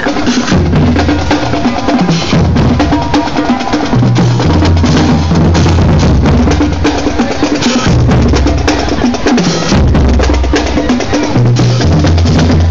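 Marching band drumline playing a street cadence: rapid snare drum strokes, marching bass drums and cymbals, over low sustained bass notes that change pitch every second or two.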